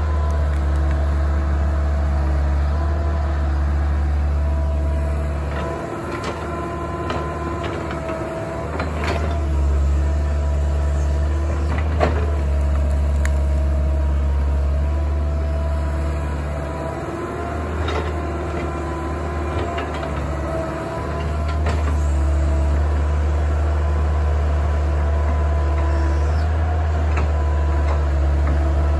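Kobelco excavator's diesel engine running as it digs, with a steady whine above the deep engine hum and a few sharp metal clanks. The engine sound eases off twice for a few seconds each time.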